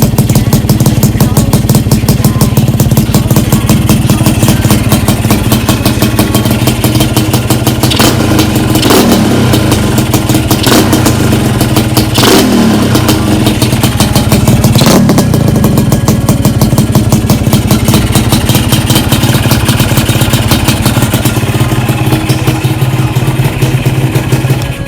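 Honda Nova RS-Super motorcycle's two-stroke Beat-110 engine running loud through a split-open, thinned aftermarket exhaust, idling with a rapid crackling beat. It is blipped four times about halfway through, each rev rising and falling back to idle.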